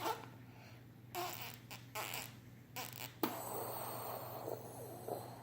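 Breath blown through a blow tube into a ball of slime: a few short puffs, then a longer steady blow of about two seconds starting about three seconds in as the ooze bubble inflates, with air spluttering through the slime.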